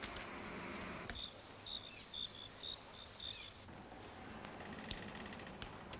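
Crickets chirping: a run of short, high chirps, about three a second, that stops a few seconds in, over a steady soundtrack hiss. A fainter rapid trill follows near the end.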